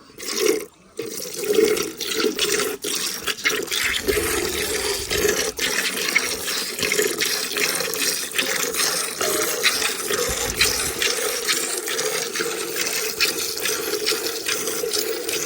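A cow being milked by hand: quick, repeated squirts of milk hitting the milk already in the container.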